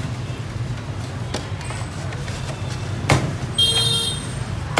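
Meat cleaver chopping through roast pork ribs on a wooden chopping block, a few sharp chops, the loudest about a second and a half apart, over a steady low background hum. A brief high-pitched beep sounds just after the middle chop.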